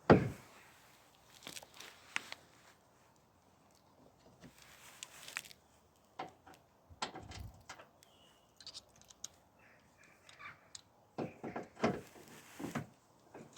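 Hand tools working on a van's wing and trim fixings: scattered clicks, clinks and knocks with quiet gaps between, a sharp knock at the very start the loudest.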